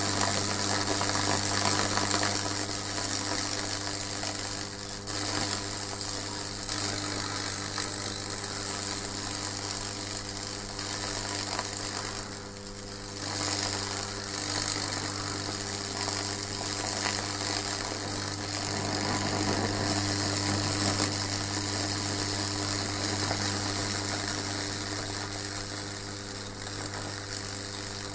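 High-voltage transformer buzzing steadily as electricity arcs from a probe into a wooden bowl, crackling and sizzling as it burns branching fractal (Lichtenberg) patterns into the wood. The crackle dips briefly about twelve seconds in.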